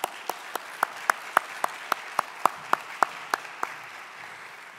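Audience applauding, with one person's louder, evenly spaced claps close by at nearly four a second that stop about three and a half seconds in, as the applause dies away near the end.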